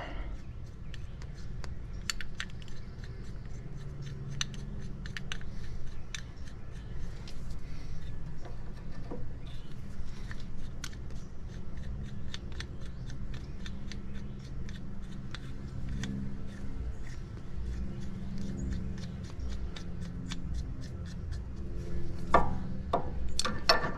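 Light metallic clicks and scraping as the screw of a ball joint removal tool is turned by hand to open its jaws wider, over a low steady hum.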